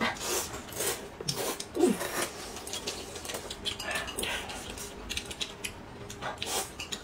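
People slurping noodles from porcelain bowls in a string of short sucking slurps, with chopsticks knocking against the bowls.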